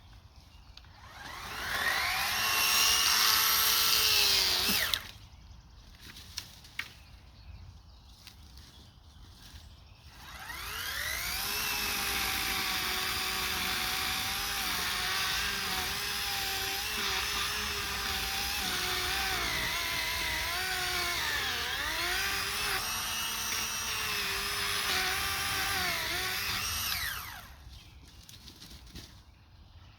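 Electric chainsaw cutting up fallen pine trees. It runs for about three seconds near the start, stops, then runs again for about sixteen seconds. Its whine rises as it spins up, dips in pitch several times as the chain works through the wood, and cuts off near the end.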